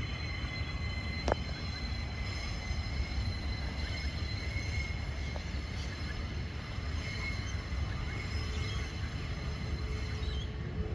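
Sugarcane train diesel locomotive running as it approaches slowly on the cane railway, a steady low rumble with steady high whines over it. A single sharp click about a second in.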